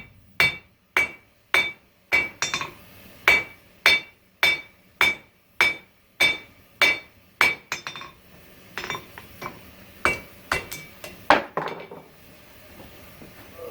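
Hand hammer forging hot coil-spring steel (about 5160) on an anvil, drawing the stock down with steady blows about two a second, each with a bright ring. After about eight seconds the blows turn lighter and uneven.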